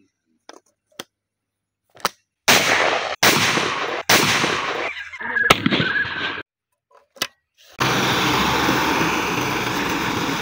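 A few light clicks as a double-barrel shotgun is loaded, then three loud shotgun shots in quick succession about two and a half seconds in, each ringing on briefly. From about eight seconds in, a tractor engine runs steadily.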